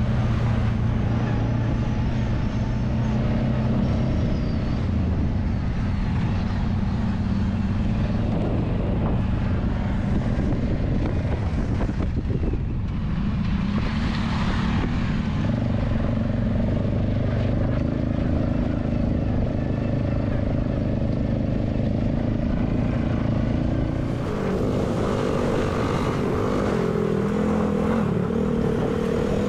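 ATV engine running steadily, its note dipping about twelve seconds in and shifting to a different pitch near the end.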